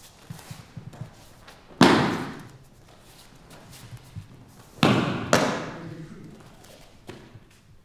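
Aikido breakfalls: bodies slamming onto foam floor mats, once about two seconds in and twice in quick succession near five seconds, each with a long echo from the hall.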